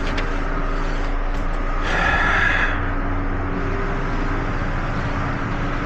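A steady low machine hum, with a brief rushing noise about two seconds in.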